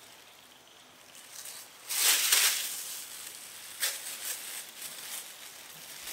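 Plastic bag rustling and crinkling in short bursts, the loudest about two seconds in.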